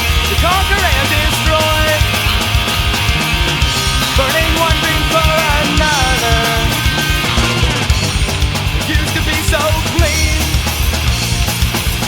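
Loud punk rock from a full band, drums and bass driving steadily, with a melodic lead line bending up and down in pitch over them.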